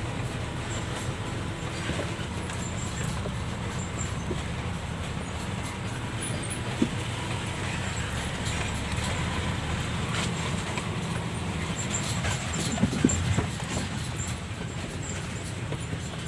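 A six-wheeled lorry's engine running low and steady, heard from inside the cab as it crawls over a rough dirt track, with faint rattles and clicks from the cab. A few louder knocks come about thirteen seconds in.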